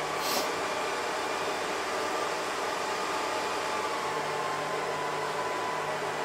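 Steady background hiss of room noise, with a brief sharper, higher hiss about a third of a second in.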